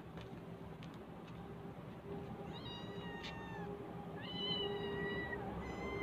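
Stray cats meowing: a high meow about two and a half seconds in, a longer one about four seconds in, and another starting near the end, each falling slightly in pitch.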